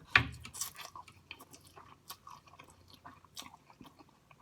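A person eating takeout noodles close to the microphone: a sharp bite or slurp-like burst about a quarter second in, then irregular wet chewing and mouth clicks.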